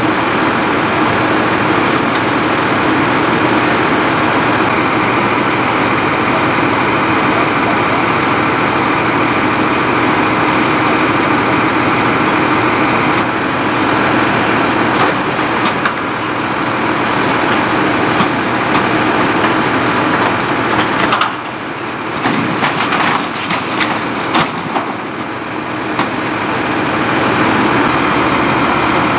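Fire apparatus diesel engines running steadily at high idle, as they do when pumping or powering an aerial ladder. About two-thirds of the way through the drone dips briefly and a few sharp clicks come through.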